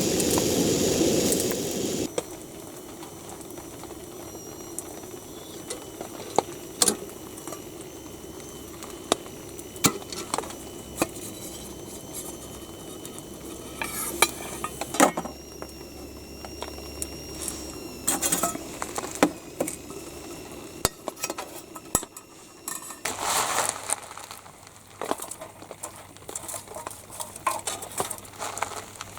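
Metal utensils clinking, tapping and scraping against cookware in scattered sharp clicks. This follows a loud steady hiss that cuts off suddenly about two seconds in.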